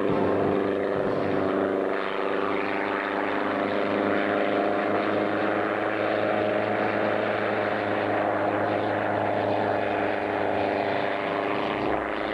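Hughes 300 light helicopter flying low, its piston engine and rotor running as a steady drone with a fast pulsing beat.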